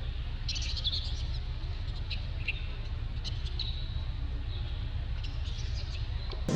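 Baby monkey crying in short, high-pitched squeaks that come in several clusters, over a steady low rumble.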